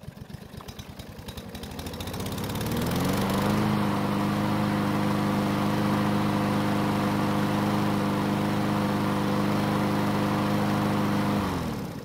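Yard Machines push mower's small four-stroke engine pull-started while hot. It catches and runs slowly for a couple of seconds, climbs to a steady running speed, then winds down and stops near the end when shut off. It is a hot restart with no trouble.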